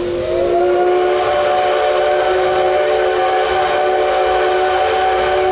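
Steam whistle of the C56-class steam locomotive C56 160 blowing one long blast of several notes at once. The pitch rises as the whistle opens, holds steady for about five seconds, then stops.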